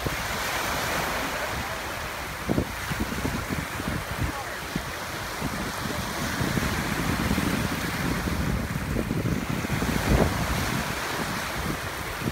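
Small waves washing and breaking in the shallows, a steady rushing hiss, with wind buffeting the microphone in gusty low rumbles; the strongest gusts come about two and a half seconds and ten seconds in.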